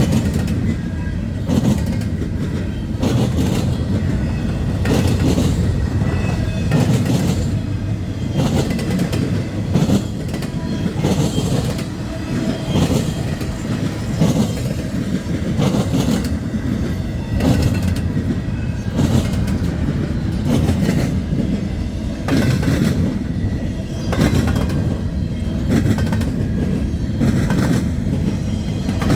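Norfolk Southern freight train rolling past at track speed: a steady low rumble, with the wheels clacking over rail joints every second or two.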